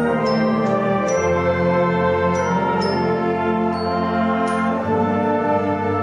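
Tyrolean brass band playing slow, sustained chords, the bass shifting twice, with high bell-like notes struck several times above them.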